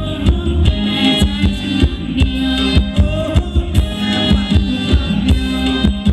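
Live band playing Thai ramwong dance music with a steady drum beat.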